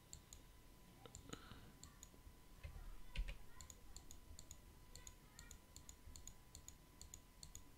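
Faint computer mouse clicks, many small sharp clicks in a loose run, over a faint steady thin tone.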